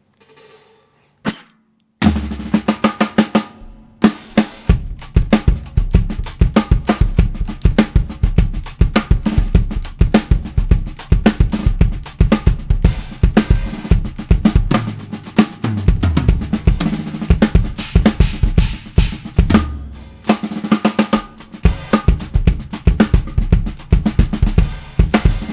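Sonor Signature Lite Birch 14x8 snare drum, 12-ply birch shell with an Evans HD Dry batter head tuned medium-high, played in a steady drum-kit groove over kick drum, with rimshots. It starts with a couple of light taps, and the full groove begins about two seconds in.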